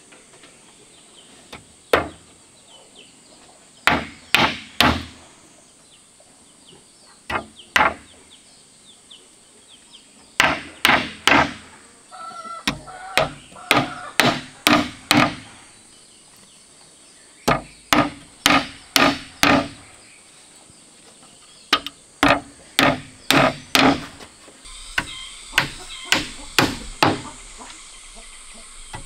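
Hammer driving nails through thin wooden slats into the frame of a slatted crate, in short runs of two to five blows with pauses between.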